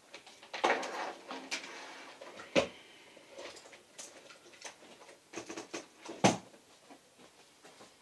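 Computer cables and equipment being handled on a wooden desk: a rustling rattle for the first couple of seconds, then scattered clicks and knocks, with two sharper knocks about two and a half and six seconds in.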